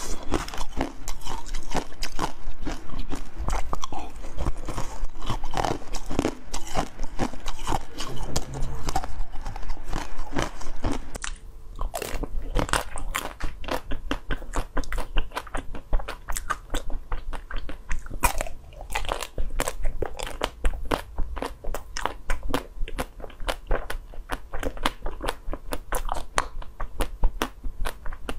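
Close-miked crunching and chewing of ice: colourful ice pieces chewed at first. About eleven seconds in, after a cut, comes a quick run of sharp crackling bites into frozen blue ice pops, several a second.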